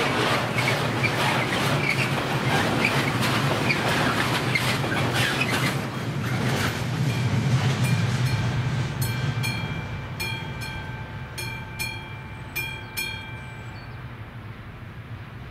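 Freight train of container wagons rolling past with wheels clacking over the rail joints, fading away after about eight seconds. The level crossing's warning bell then rings clearly in evenly repeated strokes and stops shortly before the end.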